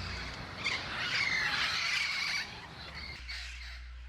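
Wild parrots squawking, a run of harsh, overlapping calls that drops away about two and a half seconds in.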